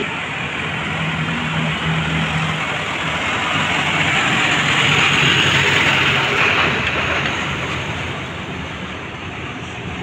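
City bus engines running with road and traffic noise at a bus terminal. The noise swells to its loudest around the middle, as a vehicle passes close, then eases off.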